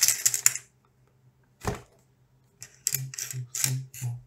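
Brown wrapping paper crinkling as it is pulled open, a single thud about a second and a half in, then a quick run of light clicks as small plastic box cutters are set down and pushed about on a bamboo cutting board.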